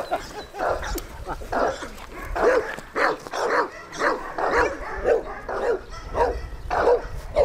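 A dog barking over and over, about two barks a second, each bark rising and falling in pitch.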